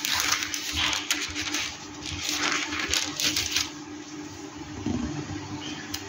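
Clicks and rustling from hands at a desk, busy for about three and a half seconds and then sparser, over a steady low hum.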